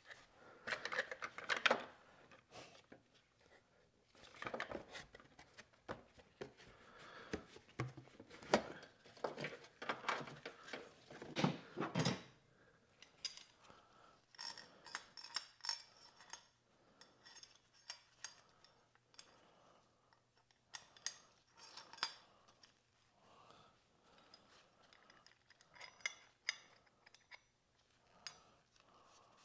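Irregular knocks and metallic clinks of hard objects being handled, heavier for the first dozen seconds and then lighter, ringing clinks.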